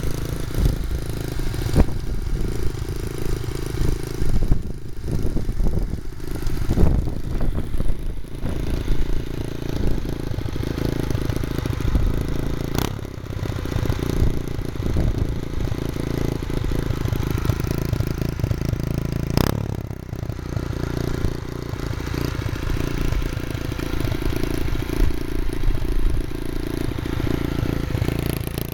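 Honda Monkey minibike's small single-cylinder four-stroke engine running steadily, with a couple of sharp clicks partway through.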